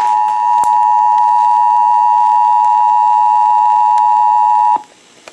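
Emergency Alert System attention signal broadcast by WALK-FM radio during its Required Monthly Test: a loud, steady two-note tone that cuts off suddenly near the end.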